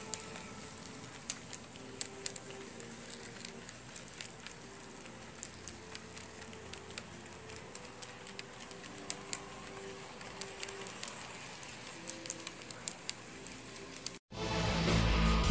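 HO scale model passenger train running along the track: a faint steady rolling noise with scattered sharp clicks of the wheels over rail joints and an on-and-off low motor hum. Loud music cuts in suddenly near the end.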